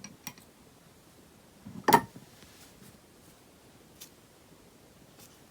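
Beeswax slime popping as it is worked: one sharp pop about two seconds in, then a few faint ticks.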